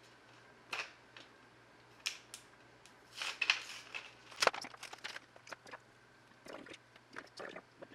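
Kuretake No. 7 brush pen and its plastic packaging being handled: scattered small clicks and short crinkly rustles, the sharpest click about four and a half seconds in.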